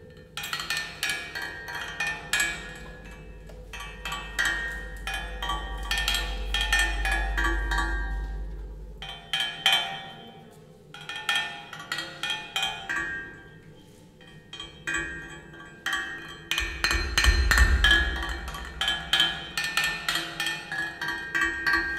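Percussive music played on milking-parlour equipment: a quick, steady rhythm of ringing metallic and woody strikes. A deep rumble swells up under it twice, once in the first half and again later.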